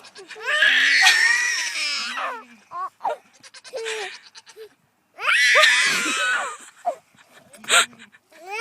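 Goat bleating: two long, loud, wavering high-pitched bleats a few seconds apart, with shorter calls in between.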